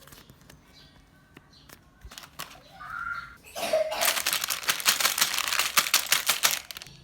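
Packaging of a toy brick set being handled, a few faint clicks and then a dense crinkling crackle from about halfway through until just before the end.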